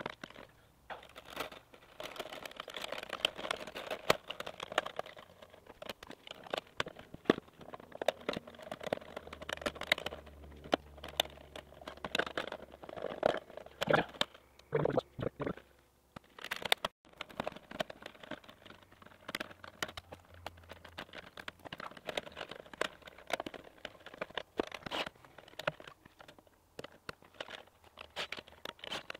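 Scattered clicks, scrapes and rustling of gloved hands and tools working inside an outdoor breaker panel while a 20 amp GFCI breaker is swapped out.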